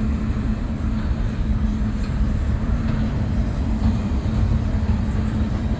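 Double-stack intermodal well cars of a freight train rolling past: a steady rumble of steel wheels on rail with a steady low drone.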